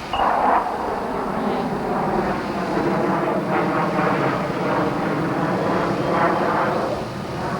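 Several small glow-fuel RC car engines running at high speed, their pitch rising and falling as they rev and let off, coming in suddenly at the start.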